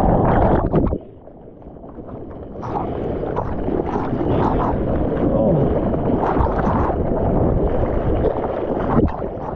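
Sea water rushing and splashing around a surfer's GoPro, with wind buffeting the microphone. About a second in the sound drops to a muffled low rumble, then the rushing water builds back and holds steady, with a single sharp hit near the end.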